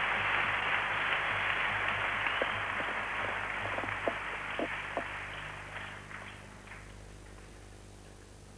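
Table tennis rally: the celluloid ball clicks sharply off bats and table about twice a second for a few seconds, over a hall's crowd noise that dies away to quiet.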